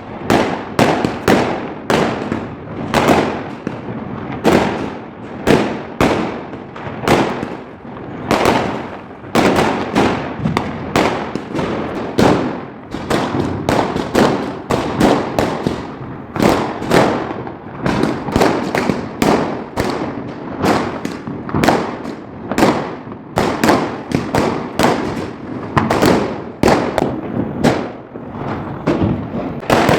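Fireworks and firecrackers bursting continuously, with loud overlapping bangs and crackles coming several times a second and no letup.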